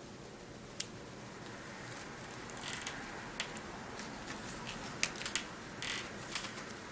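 Paper planner stickers being handled and pressed onto a page: a few sharp clicks and short papery rustles.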